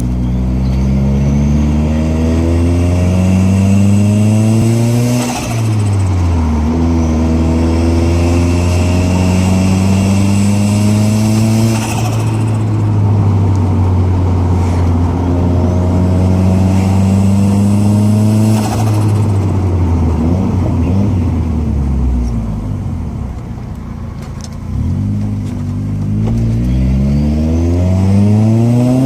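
Nissan CA18DET turbocharged four-cylinder with a T28 turbo accelerating hard through the gears: the engine note and a high turbo whistle rise over several seconds, then drop at each shift, about three times, with a short fluttering burst as the throttle closes. The engine eases off for a few seconds near the end before pulling again.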